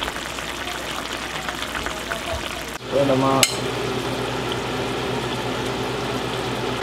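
Fish curry simmering and sizzling in a frying pan, with fine crackles. About three seconds in, a brief voice and a sharp click break in, then the sizzling goes on.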